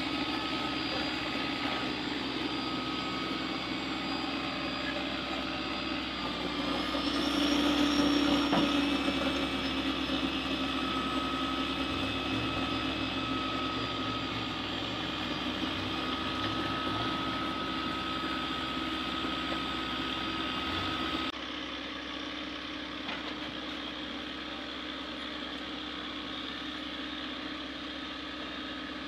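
Heavy vehicle engine running steadily, briefly louder about seven seconds in. About two-thirds of the way through it drops suddenly to a quieter level.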